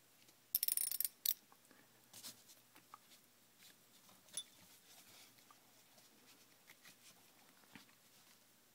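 Small handling noises of fingers working the tiny nut and bolt on a 6.0L Powerstroke fuel injector: a short burst of scratchy clicking and scraping about half a second in, then scattered light clicks and one faint metallic ting around four seconds.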